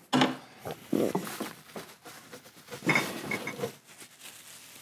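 Rummaging in a refrigerator: the door opened and things shifted inside, a few scattered knocks and rustles with short gaps between them.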